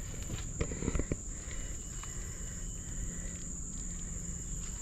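Steady high-pitched drone of forest insects, with a few footsteps between about half a second and a second in.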